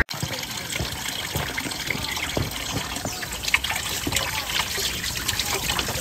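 Spring water trickling in a thin stream from a stone spout and splashing into a rock basin, a steady patter of small drips and splashes.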